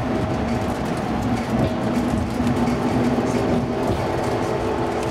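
Amtrak Pacific Surfliner passenger train running at speed, heard from inside the coach: a steady rumble of wheels on rail with a faint steady hum.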